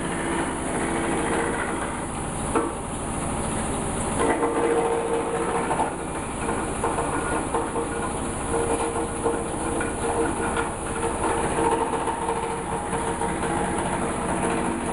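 Wood crusher machine running: a steady, loud mechanical din with a fast rhythmic rattle and a couple of sharper knocks.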